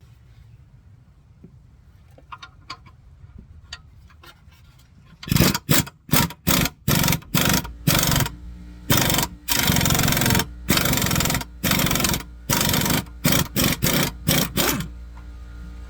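A power tool runs in a dozen or so short, loud bursts, turning the screw of a tie rod end press to force a sheared, press-fitted exhaust flange bolt out of a catalytic converter flange. A few faint clicks come before it, as the tool is set in place.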